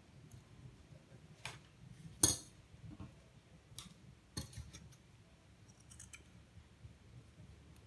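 Small scissors clicking and snipping as felt is cut: a handful of separate sharp clicks, the loudest about two seconds in.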